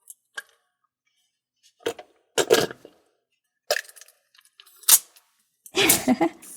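A handful of short plastic clicks and clattering knocks, a second or so apart, from hands handling plastic toy parts.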